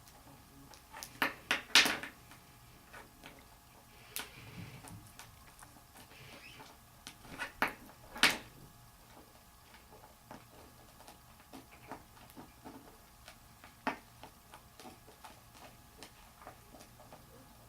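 Cockatiels playing, making scattered sharp taps and knocks. Two louder clusters of clicks come about a second in and again near the middle, with one more knock later and light ticking in between.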